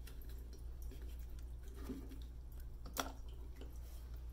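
Hinged plastic lid of a small UV sterilizer box being handled and opened, with faint rubbing and one sharp click about three seconds in, over a low steady hum.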